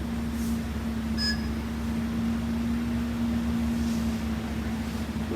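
Idling vehicle engine giving a steady hum with a low rumble underneath, and a brief high beep about a second in.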